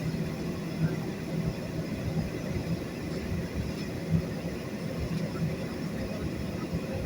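Jet airliner heard from inside the passenger cabin: a steady low rumble of engines and airflow, with a low hum that swells and fades.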